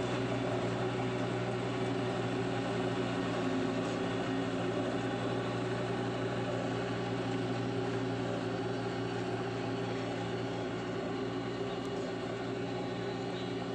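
Heavy-machinery engine running steadily at an even speed, a constant low hum with no revving.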